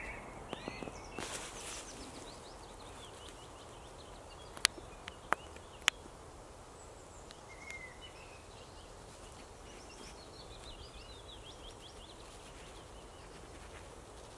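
Small birds chirping and trilling over quiet outdoor ambience, with a rustle about a second in and three sharp clicks in quick succession around the middle.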